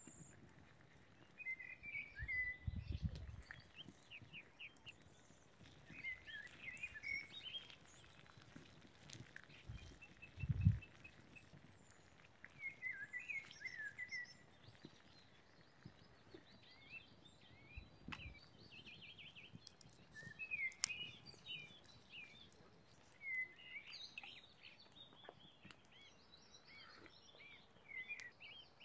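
Small songbirds chirping and singing in short repeated phrases, with a couple of low, dull bumps about three and ten seconds in.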